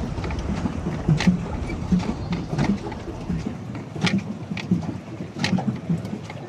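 Water splashing and slapping around a pedal catamaran at sea: short irregular splashes over a low, rhythmic churning.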